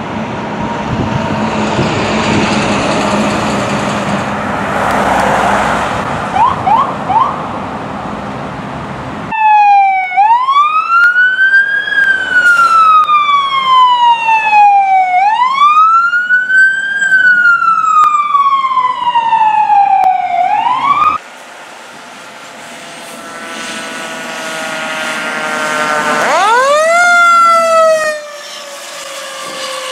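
Fire apparatus responding with sirens. First there is passing engine and road noise, then a wail siren sweeping slowly up and falling back, cycle after cycle. Near the end a second siren sweeps up sharply and falls.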